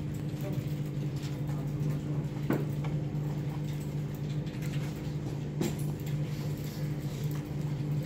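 Steady low electrical or machine hum, with a few light clicks or taps, the clearest about two and a half seconds in and again near the middle.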